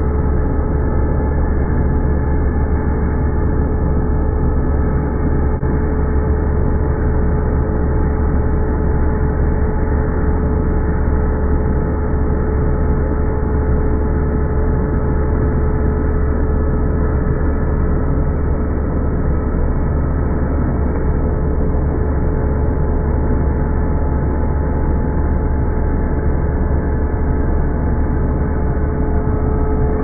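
Vacuum cleaner running steadily with air rushing through its nozzle: an even motor hum with a constant tone above it, unchanging throughout.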